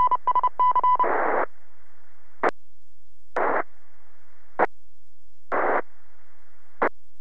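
Radio audio off a 2 m FM amateur repeater. A run of high beeps ends about a second in, cut off by a burst of static. Then a faint steady hiss is broken by five short bursts of static.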